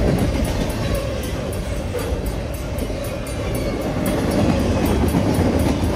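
Double-stack container cars of a CN intermodal freight train rolling past, with a steady rumble and rattle of wheels on the rails.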